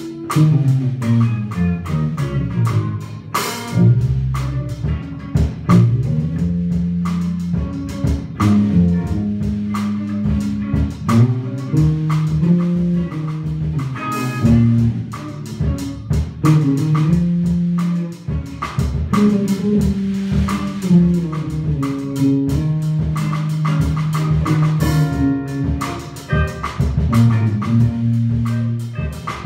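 Electric bass, electric guitar and drum kit playing a funk tune together live, the moving bass line loudest, over steady drum hits.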